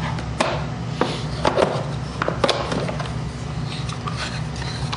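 Handling noise: a few sharp clicks and knocks as a plastic caliper case is shut and put away and a small wooden instrument box is lifted out of a steel toolbox drawer, over a steady low hum.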